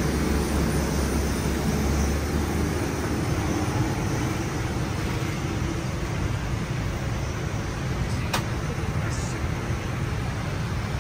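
Steady background noise inside a parked Boeing 787-9's cabin: an even rush of air over a low rumble that is heavier for the first few seconds, with a single sharp click about eight seconds in.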